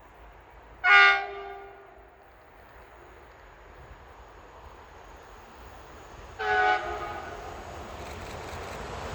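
Two short blasts of a train horn, the first about a second in and a slightly quieter one about six and a half seconds in, over the rumble of an approaching train that grows louder toward the end.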